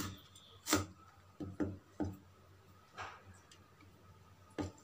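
Kitchen knife slicing green chillies on a wooden cutting board: about seven sharp knocks of the blade on the board at uneven spacing, roughly a second apart.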